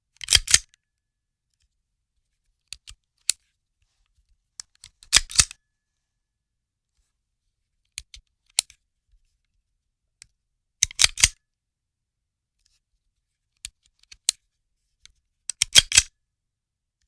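Gun handling: sharp metallic clicks and clacks of a firearm's mechanism being worked. The sounds come in four loud quick clusters about five seconds apart, with lighter single clicks between them and silence around them.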